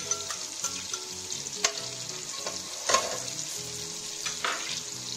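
Chopped onion sizzling as it fries in hot oil and butter in a stainless steel pot, stirred with a metal slotted spoon that clinks against the pot a few times.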